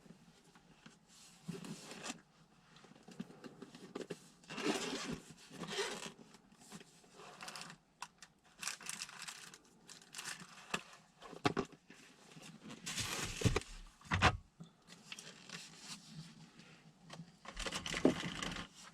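Irregular rustling and scraping noises in swells of a second or so, with a few sharp knocks, the loudest pair about two thirds of the way through.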